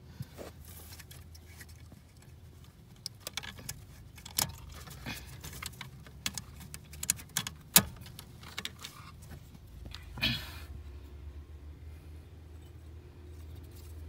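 Sharp plastic clicks and knocks as the wiring connector is unplugged from a VW Passat B5 brake pedal switch and the switch is twisted out of its bracket, the loudest click a little past halfway, followed by a short scraping rattle. A steady low hum runs underneath.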